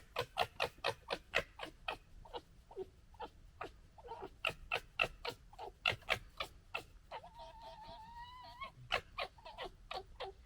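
Red foxes gekkering: a fast, stuttering chatter of harsh clicking calls, about six a second, the sound of foxes squabbling. A little past halfway the chatter gives way to a drawn-out, slightly rising whine, then the chattering starts again.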